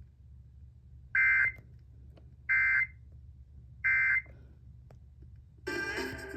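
Three short EAS digital data bursts, the SAME End of Message code sent three times about 1.3 s apart, marking the end of a broadcast emergency alert. Music starts near the end.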